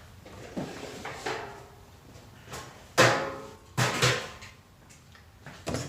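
A cardboard box and its contents being handled while unpacking: a series of knocks and thuds, the loudest about three seconds in with a short hollow ring, and two more close together about a second later.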